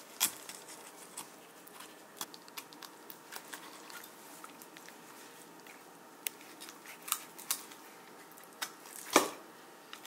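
Quiet scattered clicks and small ticks of a knife cutting into a walleye's cheek on a wooden cutting board, with two louder sharp knocks, one right at the start and one about nine seconds in.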